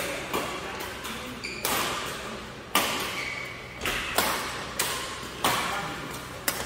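Badminton rackets striking a shuttlecock in a fast rally: sharp, echoing hits about once a second, two of them in quick succession midway.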